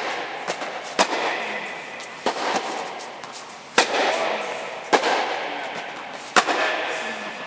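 Tennis ball struck with rackets in a rally: a sharp hit about every second and a half, with lighter ball bounces between, each ringing on in the reverberant tennis dome.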